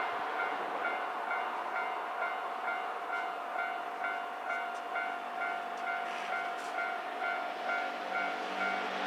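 Japanese railway level-crossing warning bell ringing in an even, rapid rhythm, about three strikes a second: the crossing is closed for an approaching train.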